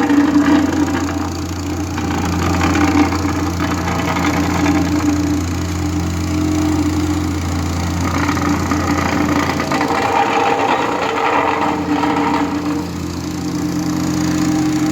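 Heavy paving machinery engine running steadily, with a continuous scratchy crackling over it.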